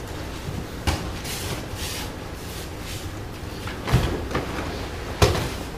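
Bodies thudding and slapping onto a padded martial-arts mat as one partner is taken down: a thud about a second in, a heavier thud near four seconds and a sharp slap about five seconds in, the loudest of the three, with softer rustling between.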